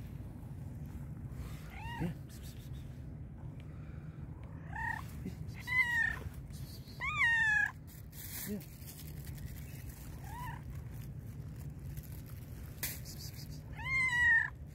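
Black-and-white cat meowing about six times, separate calls a second or more apart, the longest about halfway through and another loud one near the end: a hungry cat begging for food.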